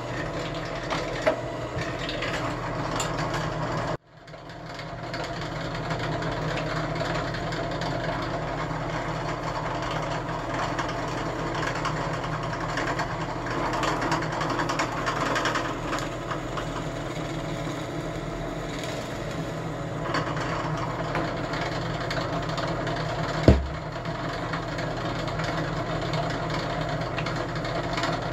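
Drill press motor running steadily with a low hum while the bit is fed down to bore holes in wood. The sound breaks off abruptly about four seconds in and returns, and there is a single sharp thump near the end.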